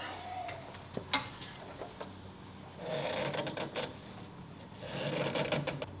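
An oil filter canister being turned off its mount by hand: a couple of light clicks about a second in, then two stretches of rasping rubbing as the canister and its gasket scrape round on the threads.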